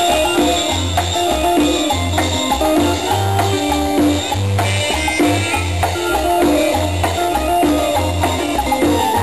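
A live Latin tropical dance band playing through the stage sound system: a bass line of short repeated notes under shakers, drums and melody instruments.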